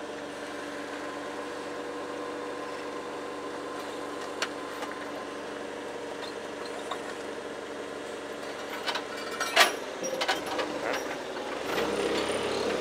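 Nissan forklift's engine running steadily at idle, holding a load on its forks. Near the end come a few sharp knocks, the loudest about ten seconds in, and the engine note grows louder.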